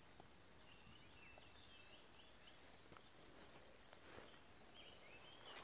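Faint songbird singing in short warbling phrases, once about half a second in and again near the end, over a quiet background hiss.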